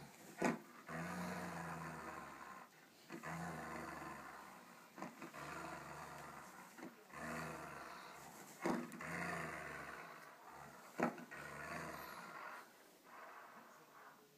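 Saluki growling in play while tugging on a rope toy: a rasping, chainsaw-like growl in bursts of a second or so, one after another with short breaks. A few sharp clicks stand out among them.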